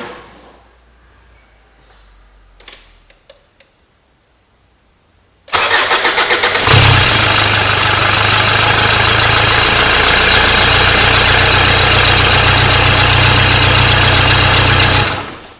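2001 Mitsubishi Pajero 3.2 four-cylinder turbo-diesel cranking for about a second, then catching roughly and running steadily at idle before being shut off near the end, the sound dying away quickly. It is a cold start without giving the glow plugs time to heat. A few faint clicks come before the cranking.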